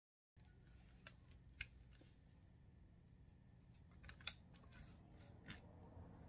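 A few scattered sharp clicks from hands working the keyless chuck of a DeWalt cordless drill, the loudest about four seconds in, over faint room tone.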